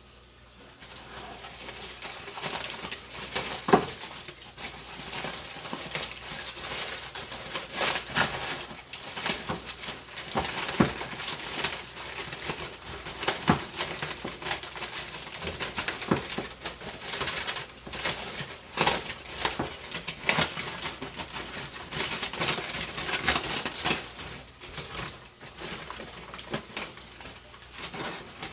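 Hands patting and spreading a dry rub onto raw beef ribs: irregular soft pats and slaps over a steady rustle of handling.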